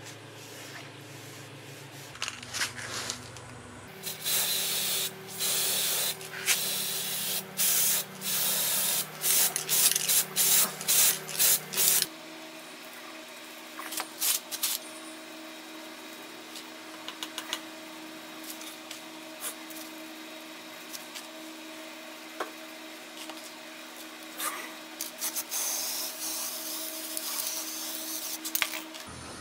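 Aerosol spray-paint can hissing in a string of short bursts for several seconds, then a few more bursts later on, laying black paint onto a wooden scabbard.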